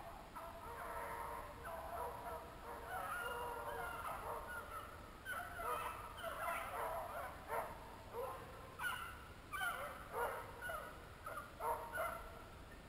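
A pack of beagles baying on a rabbit's track, several voices crying over one another, faint at first and growing louder and more frequent in the second half as the chase comes closer.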